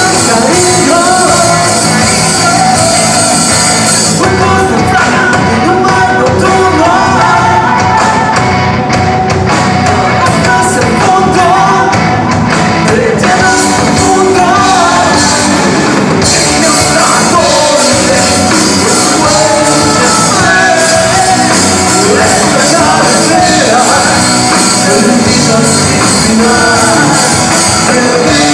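Live rock band playing at full volume, with electric guitars, drums and keyboard under a lead vocal. The bright top of the sound drops away about four seconds in and comes back about halfway through.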